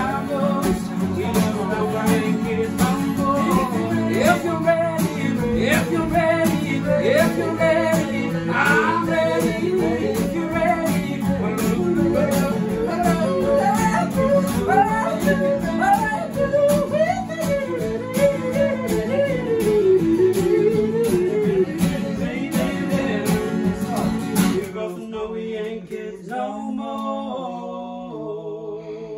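Acoustic guitars strummed in rhythm with a voice singing the melody. Near the end the strumming stops and a few last notes ring out and fade as the song closes.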